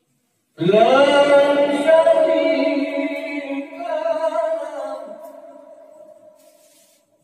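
A man reciting the Quran in the melodic tilawah style into a microphone: one long drawn-out phrase that starts about half a second in, slides up in pitch at its start, moves to a new note partway through, and slowly fades away near the end.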